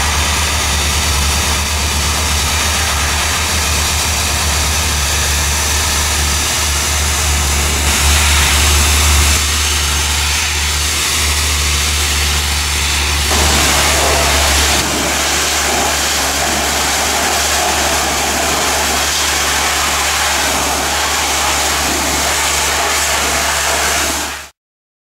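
High-pressure steam cleaner and pressure washer spray hissing hard against metal machinery as it blasts off oil and grease, with a steady low hum from the running machine underneath. The spray noise changes abruptly a few times, most clearly about 13 seconds in.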